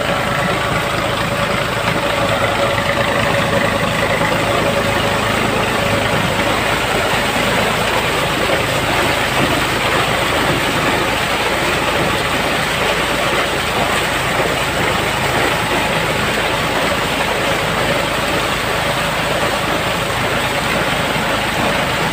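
Water pouring and splashing heavily off a wooden Persian wheel (rahat) into a channel, a loud steady rush, with a steady low hum from the electric motor that drives the wheel underneath.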